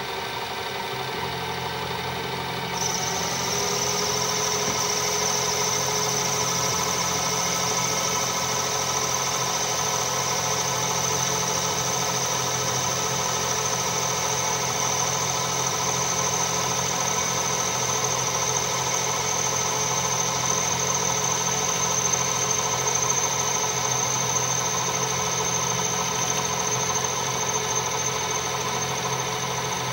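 Metal lathe running steadily while a cutting tool takes a cut across the inner face of a 1/8-scale brake drum. About three seconds in, a high steady whine joins and the sound gets slightly louder, then holds.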